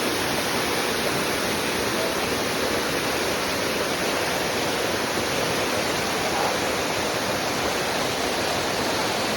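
Waterfall water pouring and splashing, a steady, even rush of noise.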